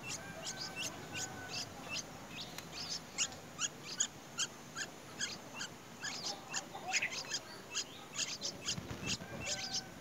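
White-browed bulbul nestlings begging at the nest: a rapid run of short, high peeps, several a second, as they gape for food.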